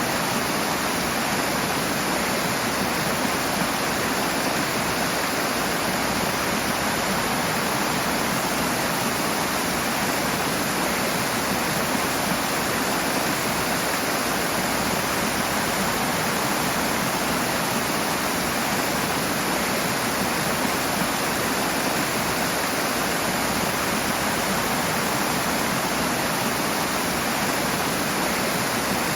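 Rushing water: a steady, loud, unbroken roar of fast-flowing water.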